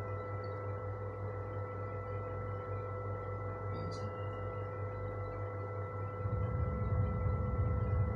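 90W LED moving head spot light's fan and motors humming steadily, with several fixed whining tones over a low hum. There is a light click about four seconds in, and about six seconds in the low hum grows louder and starts to pulse.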